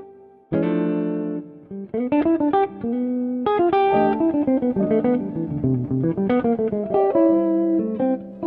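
Background instrumental music of plucked notes, with a chord struck about half a second in after a brief lull, then a melody of single notes.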